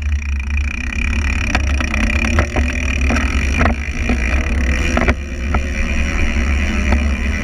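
Wind buffeting the bike-mounted action camera's microphone during a fast downhill descent on a mountain bike, with tyre noise on asphalt and several sharp rattles of the bike over the road.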